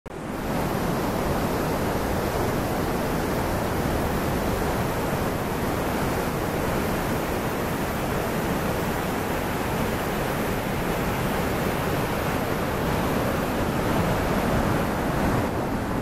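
Loud, steady rush of a waterfall and rapids: a heavy flow of white water pouring over rock ledges, an unbroken roar with no change in pitch.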